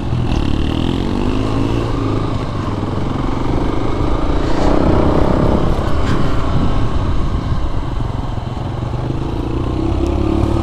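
Kawasaki KLR250's single-cylinder four-stroke engine running as the bike rides along, heard from the bike itself. About halfway it revs up and changes pitch as it accelerates, then eases off as the bike slows near the end.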